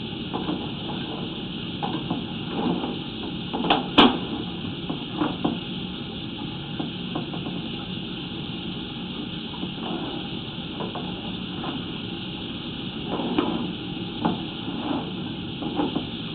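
Sewer inspection camera pushed along inside a drain pipe: irregular knocks and taps as it goes, with one sharp knock about four seconds in, over a steady hiss.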